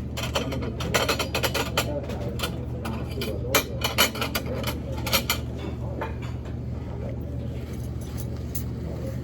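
Cutlery and dishes clinking at a meal: a run of sharp clinks and clicks through the first five seconds or so, thinning out after, over a steady low hum.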